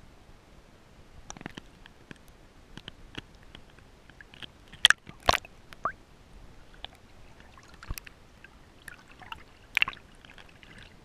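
Underwater sound picked up through an action camera's waterproof housing: scattered clicks and pops, with a few sharp knocks about five seconds in and again near eight seconds. Near the end a cluster of splashing and bubbling as the camera comes up through the surface.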